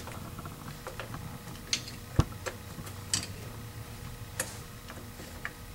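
Sparse, quiet clicks and taps of a capacitor and its metal bracket being handled and fitted into an electric actuator housing, about half a dozen in all, the sharpest knock about two seconds in.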